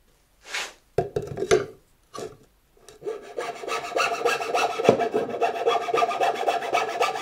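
Hand file rasping the edge of the centre hole in a wooden band-saw wheel, chamfering it. A few separate scrapes and knocks come first, then from about three seconds in the file goes back and forth in quick, steady strokes.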